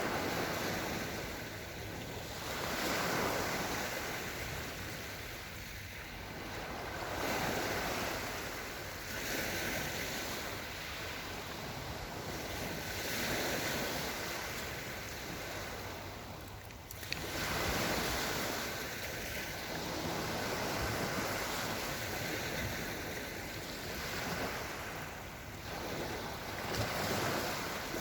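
Small Black Sea waves washing onto the shore, the surf swelling and falling away every three to four seconds, with wind on the microphone.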